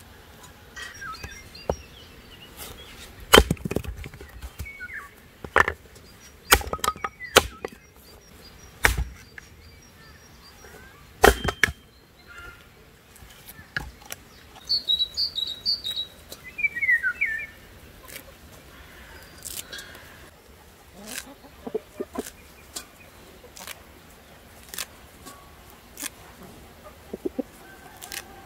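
Axe blows splitting firewood on a wooden chopping block: a series of sharp strikes every second or two, loudest in the first half and lighter later. Small birds chirp briefly about halfway through.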